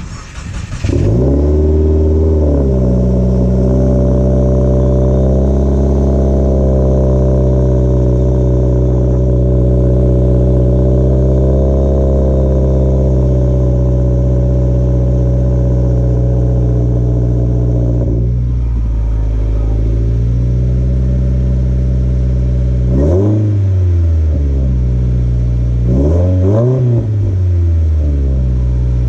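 Subaru WRX's turbocharged FA20 flat-four running through an Invidia Gemini R400 exhaust with a catless J-pipe. The engine comes up to a high idle, settles to a lower idle about eighteen seconds in, then is revved three times near the end.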